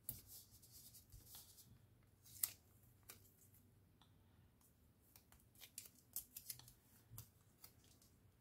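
Quiet handling of paper and craft supplies: a string of short, sharp snips and rustles. The loudest comes about two and a half seconds in, and a quick run of them follows in the second half.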